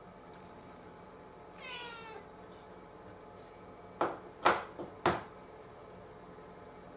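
Orange tabby cat giving a single meow that falls in pitch, about two seconds in. A couple of seconds later come four sharp taps in quick succession, the loudest sound here.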